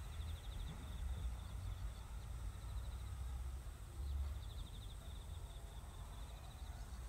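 A high, fast-pulsing insect trill in repeated bursts of about a second each, over a low steady rumble.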